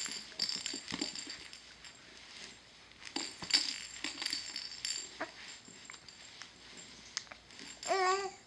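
Faint rustling and light clicks, then near the end a short infant coo with a bending pitch, a baby who is just starting to make sounds.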